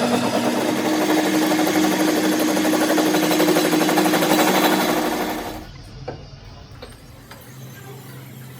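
A workshop machine running with a fast, even clatter and a steady hum, stopping about five and a half seconds in; a few light clicks follow.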